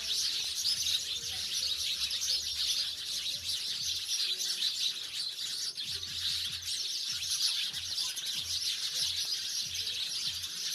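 House sparrows chirping, a dense steady chatter of short overlapping chirps with no pause.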